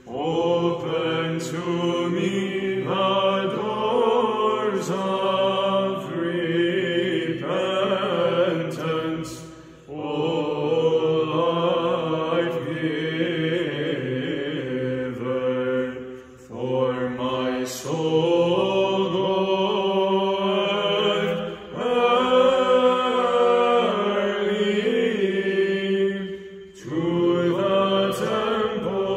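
Byzantine chant sung in English by a small group of men's and a woman's voices: a melody line over a held low drone (the ison), in phrases broken by four short pauses for breath.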